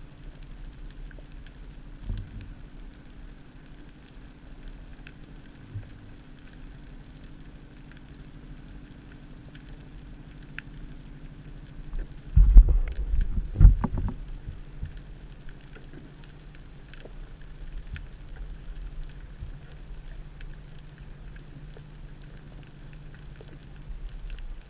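Underwater ambience picked up through a camera housing: a low steady rumble and hum with faint scattered crackles, broken about halfway through by a cluster of loud low thumps lasting about a second and a half.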